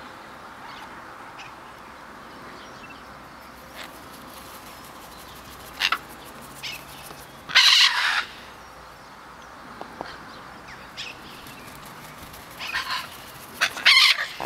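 Macaws giving loud, harsh squawks: a short one about six seconds in, a longer one around eight seconds, and a few more in quick succession near the end.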